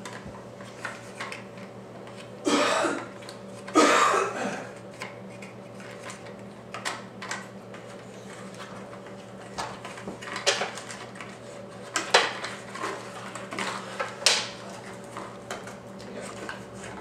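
Wooden toys clacking and knocking: irregular light clicks and knocks from a wooden activity cube and its bead maze being handled. Two louder bursts of noise come about two and a half and four seconds in.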